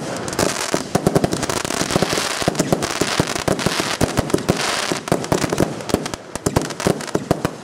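Panda Amboss category F2 firework battery firing: a rapid, closely packed run of launch shots and bursting bangs and pops, densest through the middle seconds and thinning toward the end.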